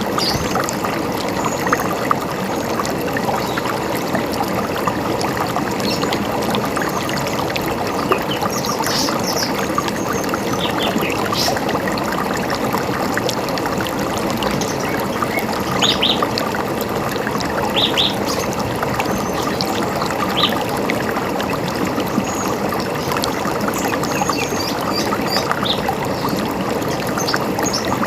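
River water running steadily, with short high bird chirps here and there, including a pair of chirps about 16 and 18 seconds in.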